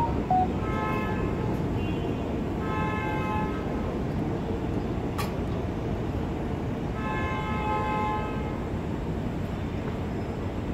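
New York City subway train pulling away from an elevated station, with a steady rumble of wheels on the rails. Three flat horn tones sound over it, the third the longest, and there is a single sharp click about halfway through.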